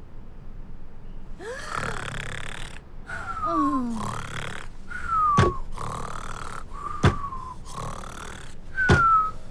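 Exaggerated cartoon snoring starting about a second and a half in: a run of noisy snores, several ending in a whistle that slides down in pitch. Three sharp clicks land in the second half, about two seconds apart.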